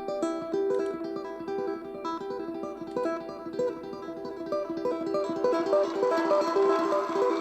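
Music with quick, picked guitar-like notes, played back through a portable Bluetooth speaker for a sound test; a fuller, hissier layer joins about five and a half seconds in.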